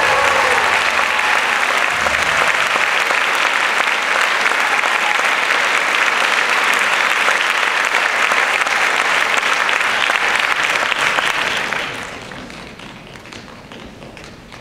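Audience applauding at the end of a performance, a dense steady clapping that dies away in the last few seconds.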